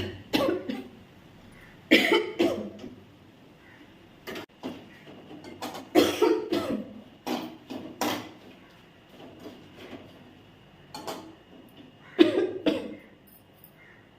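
A person coughing in short fits, two or three coughs at a time, again and again. The coughing is set off by the pungent fumes of dried red chillies roasting in a pan.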